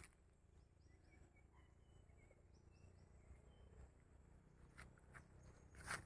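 Near silence in woodland: faint, short high calls in two small groups, about a second in and about three seconds in, over a low hum, with a soft click at the start and another near the end.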